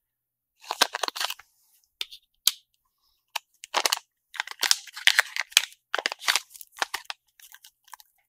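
Small plastic parts bag crinkling in the hands, in irregular short crackly bursts.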